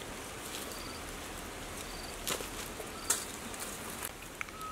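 Steady outdoor background hiss with a faint, short high chirp repeating about once a second. Two sharp rustling crackles come about halfway through, and a short wavering call starts near the end.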